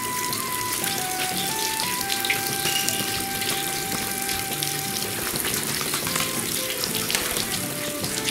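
Water running steadily from the bamboo spouts of a Shinto shrine's purification fountain and splashing into the stone basin, with a slow background melody over it.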